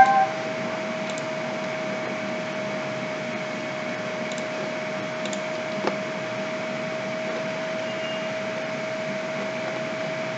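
Steady hiss of background noise with a constant mid-pitched hum, broken by a few faint clicks.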